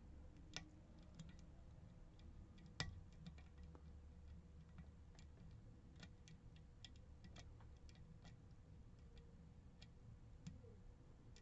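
Faint, irregular small metallic clicks of a lock pick working the wafers of a Miwa DS lock, with one sharper click about three seconds in.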